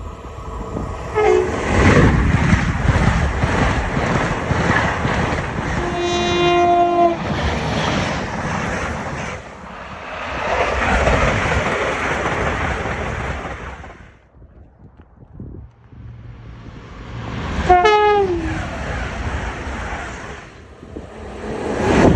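High-speed trains rushing past at speed and sounding their horns. A steady horn blast comes about six seconds in over the roar of the first train. After a short lull, a second train passes with a brief horn about eighteen seconds in that drops in pitch as it goes by.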